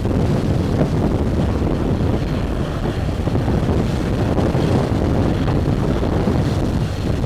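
Typhoon-force gusting wind buffeting the microphone: a loud, heavy, low rumble of wind noise.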